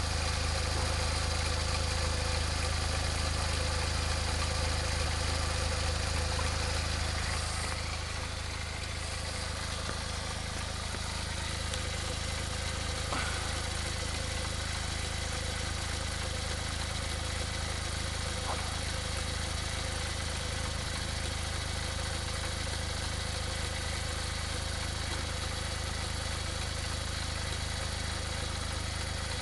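A Smart car's small three-cylinder engine idling steadily while it smokes heavily from the exhaust, settling a little quieter about eight seconds in.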